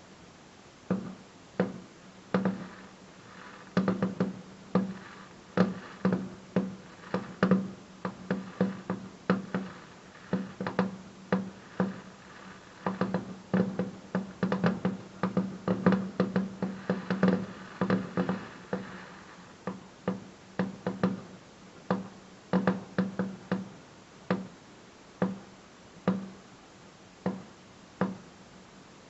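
Fireworks going off in rapid succession: a long run of sharp bangs, thickest in the middle into a near-continuous crackle, then thinning out again.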